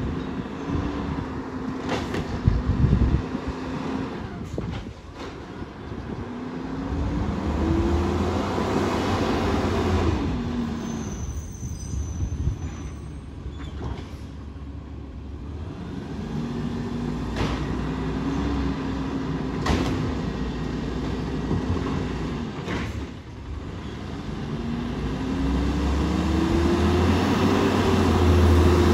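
Garbage truck on its collection route: the engine twice revs up in a rising drone and eases back down, with several sharp metal clanks as trash cans are slammed to empty them.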